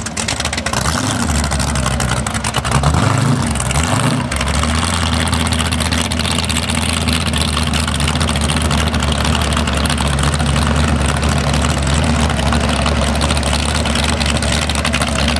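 Open-exhausted inboard engine of a flat-bottom V-drive race boat, just fired up. It changes pitch a few times over the first four seconds, then settles into a steady low-speed run as the boat idles away.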